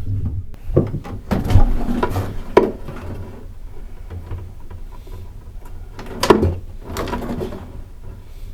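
Knocks and rustling of hands working in a plywood boat cabin while pulling lines through chase tubes: a few sharp knocks in the first three seconds and a louder one past six seconds.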